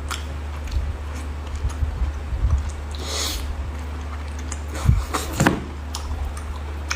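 Handling noises over a steady low hum: a short rustle about three seconds in, then two knocks a little after the five-second mark.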